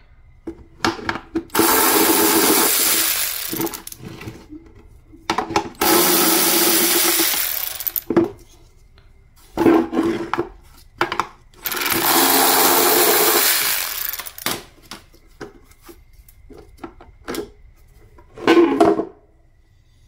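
Cordless electric ratchet whirring in five runs, three of them two to three seconds long, as it undoes the 14 mm bolts holding a mass airflow sensor to a plastic air filter box lid. Short clicks and knocks of the plastic parts being handled fall between runs.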